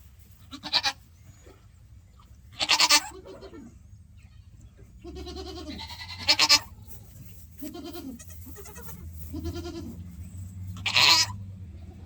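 Goat doe in labor crying out repeatedly: four loud, harsh cries spread through, with softer, lower calls between them. These are the distress calls of a doe straining to push out a kid.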